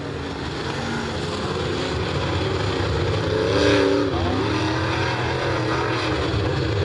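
A pack of dirt late model race cars' V8 engines running together as the field circles the dirt oval. The engines swell to their loudest about four seconds in.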